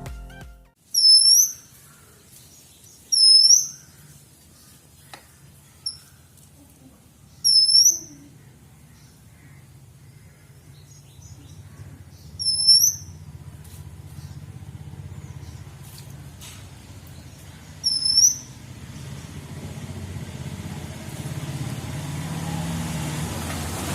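A bird calling: five loud, short, high notes, each sliding in pitch, spaced several seconds apart.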